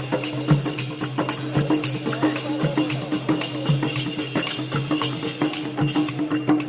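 Music with a steady beat: a low thump about once a second, with quicker jingling percussion between.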